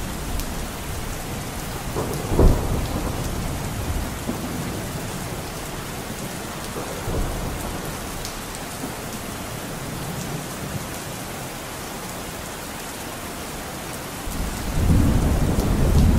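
Steady rain with thunder: a sharp clap about two seconds in and a louder, longer low rumble building near the end.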